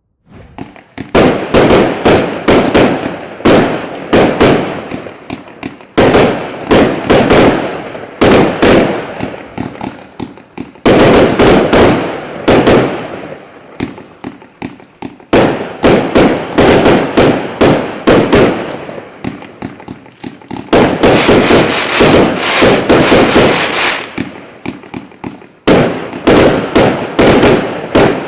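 Consumer firework battery (cake), product Р7359 'Salyut', firing: rapid volleys of sharp shots with crackling bursts, coming in waves about every five seconds.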